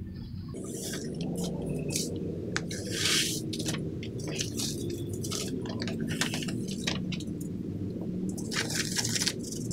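Dry powdered cement, fire brick and red clay brick poured off sheets of paper into a plastic cup: paper rustling, a pouring hiss about three seconds in, then a wooden stick scraping through the dry mix in the cup near the end. A steady low rumble runs underneath.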